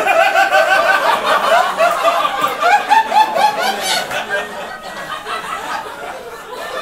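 Live audience laughing, many voices at once. It is loudest over the first few seconds and eases off toward the end.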